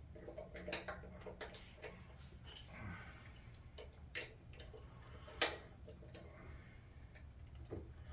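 Faint, irregular metallic clicks and taps of a spark plug socket and wrench being handled and fitted onto a small mower engine's spark plug, with one sharper click about five and a half seconds in.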